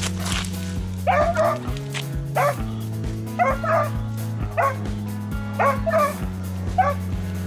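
Large dog giving short, high-pitched excited yips and barks in quick clusters, about nine in all, worked up at a stray cat. Background music with a steady beat plays under it.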